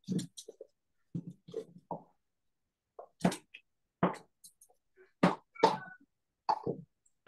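Hand mixing damp bread cubes and chopped vegetables in a large stainless-steel bowl: a string of short, irregular squishing and scrunching strokes.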